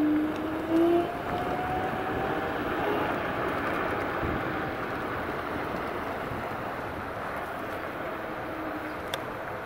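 Wind and road noise from a ride on an electric scooter. A motor whine climbs gently in pitch over the first few seconds. A steadier tone stops about a second in.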